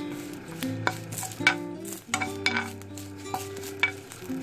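Spatula stirring curry leaves frying in a drop of oil in a nonstick pan: light sizzling with several sharp scrapes and clicks against the pan. Soft background music with held notes plays underneath.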